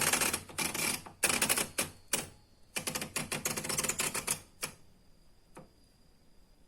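Rusty old typewriter being typed on in two quick runs of clacking key strikes, which stop about four and a half seconds in, followed by one last single clack about a second later.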